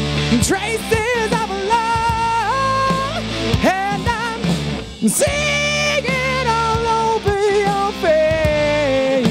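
Live rock band playing, with a male lead singer holding long wavering notes that slide between pitches over electric guitars, bass and drums.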